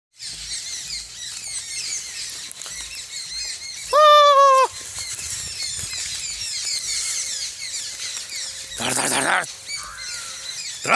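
Dense chorus of small birds chirping over an open field. About four seconds in there is one loud, drawn-out call that drops at its end, and near nine seconds a short rough burst.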